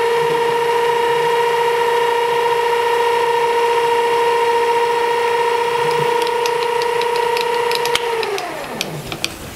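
Metal lathe spindle running at a steady speed with a steady two-tone whine while a centre drill is fed into a spinning brass flywheel blank. About eight seconds in the motor winds down: the whine falls in pitch and fades, with a few light ticks.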